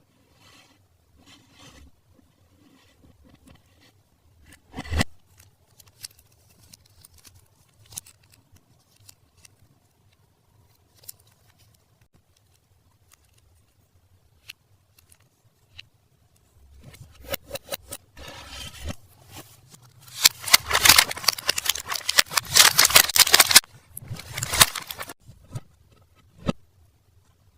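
Toy packaging and toys being handled: scattered light clicks and taps with one louder knock about five seconds in, then about four seconds of dense plastic crinkling in the last third.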